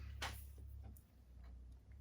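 Clear acetate trading cards being handled: a few light clicks and taps, the sharpest about a quarter second in, over a steady low hum.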